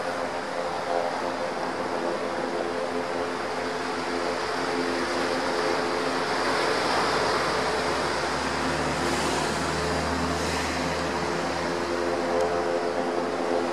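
Search-and-rescue helicopter hovering low over the sea: a steady drone of rotor and turbine with a hum of engine tones, swelling a little about halfway through.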